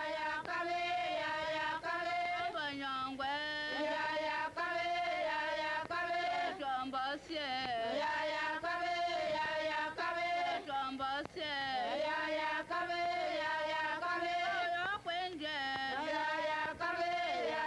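Singing: a melody of held notes with wavering pitch and short glides between them, going on without a break.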